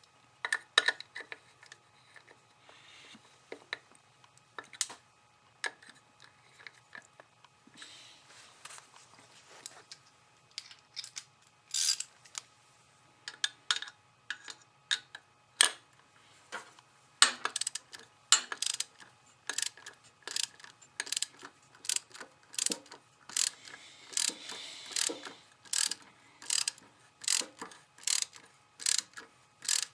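Hand ratchet wrench clicking while nuts are run down on the engine, with scattered clinks of tools and parts at first. About halfway through it settles into even ratcheting, about two clicks a second.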